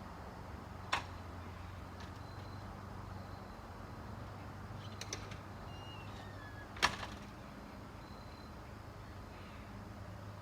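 Steady low room hum, broken by two sharp knocks, one about a second in and a louder one about seven seconds in, with a few faint ticks and two short faint chirps between them.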